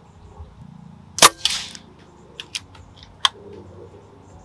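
A single sharp shot from a .177 Zbroia Kozak MK2 pre-charged pneumatic bullpup air rifle about a second in, with a short rougher noise straight after it. Three lighter, sharp clicks follow over the next two seconds.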